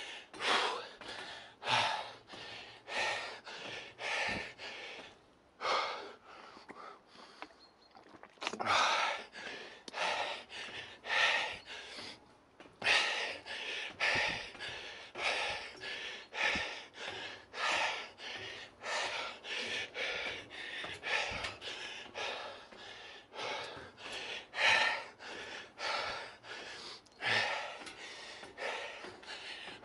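Heavy, rhythmic panting of a man out of breath from climbing a very long steep staircase, a loud breath roughly every second, easing off briefly for a few seconds before picking up again.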